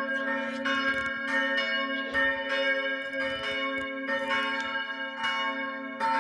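Several church bells ringing together, strokes overlapping about twice a second in an uneven sequence, with the deep sustained ring of the bells underneath.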